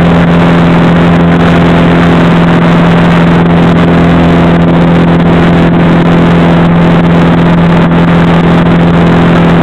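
Piper PA-28 Warrior's four-cylinder Lycoming O-320 engine and propeller running steadily in flight, a loud, even drone at a constant pitch heard from inside the cockpit.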